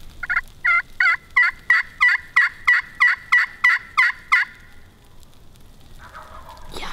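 Pot-style friction turkey call worked with a wooden striker, imitating a hen: a run of about thirteen yelps, roughly three a second, each dropping in pitch, lasting about four seconds.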